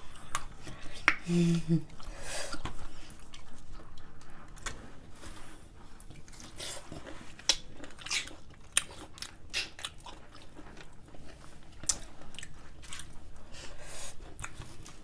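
Biting into and chewing juicy pickles close to the microphone: a run of short wet crunches and mouth clicks, with a brief closed-mouth hum about a second in.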